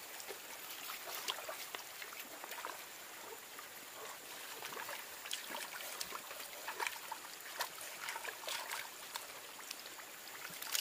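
Water splashing and dripping in a plastic basin as hands grab and lift carp in it: a run of small irregular splashes.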